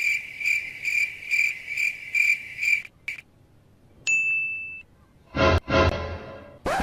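Edited-in sound effects: a high chirp repeated about twice a second for some three seconds that stops abruptly, then a short steady high beep about four seconds in, then two more pitched effects and a rising sweep near the end.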